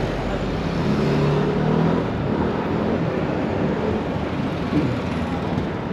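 City street traffic: a motor vehicle's engine passing close by, loudest a second or two in, over a steady background of road noise.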